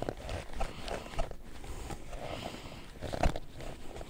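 Scattered small clicks, knocks and rustles of hands handling plastic door-mirror parts, with a sharper knock about a second in and a louder one near three seconds in.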